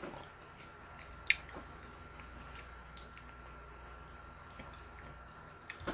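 Close-miked chewing: quiet, wet mouth sounds with a few sharp clicks, about a second in, around three seconds in and near the end.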